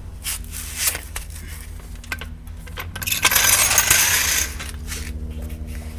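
Metal clinking and rattling: short, irregular clicks, with a denser jingling clatter lasting over a second about three seconds in.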